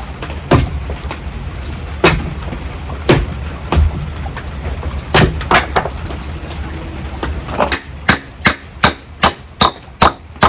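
Hammer driving a nail into wood: a few separate blows, then from about eight seconds in a quick, even run of about two and a half blows a second.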